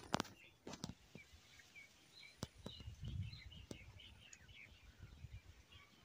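Birds chirping faintly in short, scattered notes, with a few sharp clicks and knocks in the first second and a brief low rumble about three seconds in.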